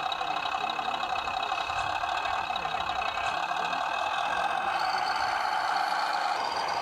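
Radio-controlled model machine running steadily, a continuous mechanical whine with steady high tones over it.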